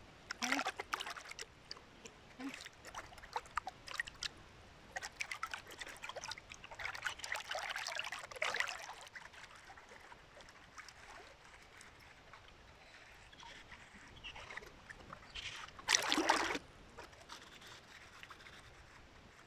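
River water splashing and sloshing around a wading angler, a quick run of small splashes over the first nine seconds, then quieter water with one louder burst about sixteen seconds in.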